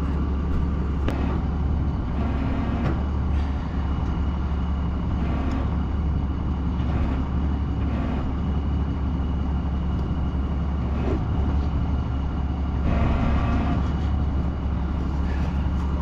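Crane's engine idling steadily, with a few light knocks from the track roller being handled.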